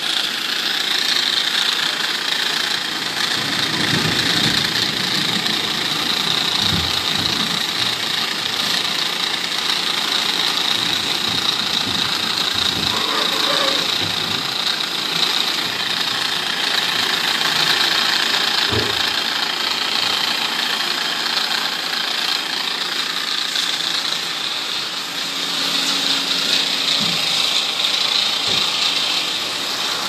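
A small motor running steadily with an even hiss, with a few low thumps along the way.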